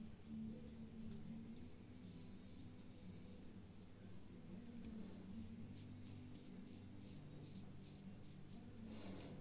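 Japanese Maxfli Gold 100 safety razor scraping through lathered stubble in short strokes, about two or three a second, with a brief pause near the middle.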